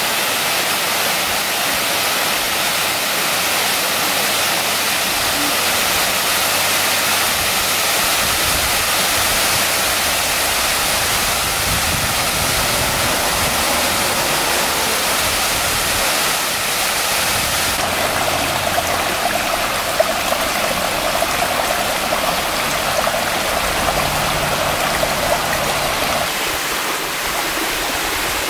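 Waterfall cascading over rock ledges into a pool: a steady rush of falling water, which changes in tone about two-thirds of the way through.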